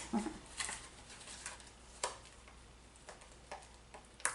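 Light handling of a small product box and its packaging: a few scattered soft clicks and taps, the sharpest near the end, after a brief low hum from a voice at the very start.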